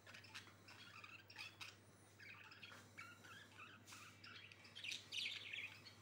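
Budgerigars chirping and chattering in a breeding cage, faint, with a run of many short chirps and a louder burst of chatter near the end.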